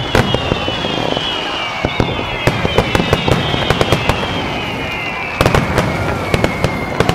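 Fireworks finale: aerial shells bursting in rapid succession, sharp bangs several a second with crackle and rumble between them. High tones slide slowly downward in pitch over the bursts.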